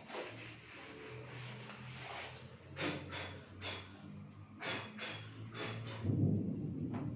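Cloth duster rubbing across a chalkboard, a soft scrubbing at first, then a run of short quick wiping strokes. A louder low rumble comes in the last second.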